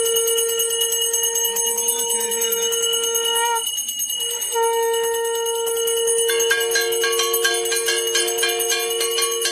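Brass puja hand bell (ghanta) rung continuously, its clapper striking rapidly to give a steady ringing tone. It breaks off for about a second near the middle, then resumes. About six seconds in, further lower ringing tones join it.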